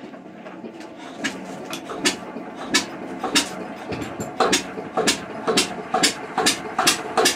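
Witte diesel engine firing up: sharp exhaust beats come at first a few at uneven intervals, then settle into a regular knocking rhythm that quickens to a little over two a second as the engine picks up speed.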